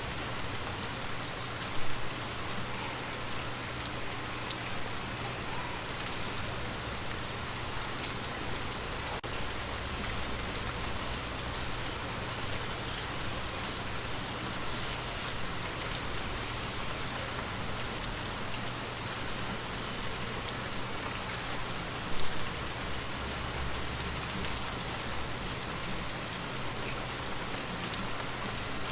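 Steady rain falling and pattering on surfaces, with two sudden louder knocks, about two seconds in and near twenty-two seconds.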